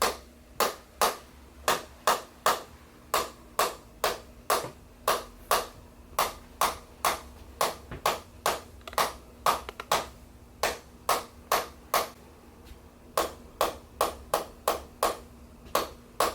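Handheld chiropractic adjusting instrument tapping along the back: a steady run of sharp clicks, about two or three a second, with a short pause about three-quarters of the way through.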